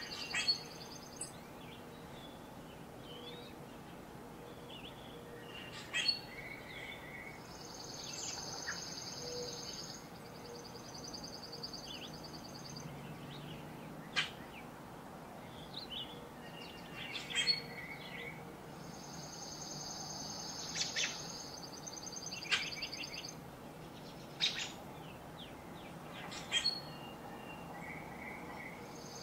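Woodland songbirds singing: a high, dry trill lasting two to three seconds comes back about every eleven seconds, among short chirps and calls from other birds. A faint low background rumble runs under it.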